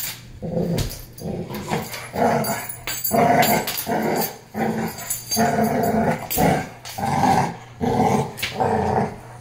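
Puppies play-fighting, with a run of short, repeated growls at about two a second.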